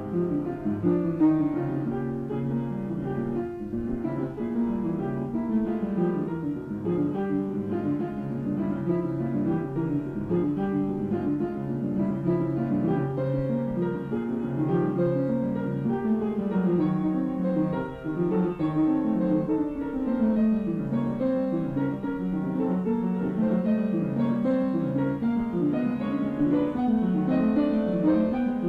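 Piano playing a scherzo at a moderate tempo: a continuous stream of quick notes and chords.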